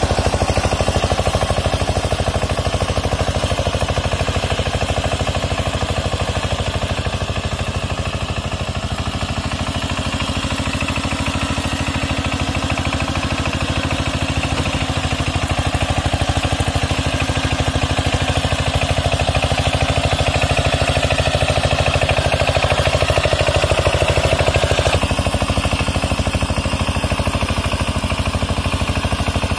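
Single-cylinder diesel engine of a walk-behind power tiller running steadily under working load in a flooded paddy, with an even, fast firing beat. Its tone shifts slightly near the end.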